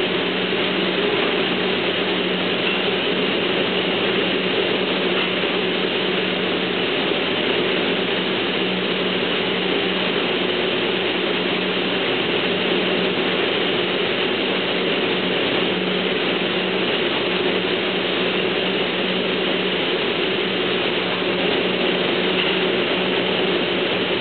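Steady running noise of an automated wet-paint spraying line: the booth's air handling, the conveyor and the painting robots at work, with a constant low hum and no breaks.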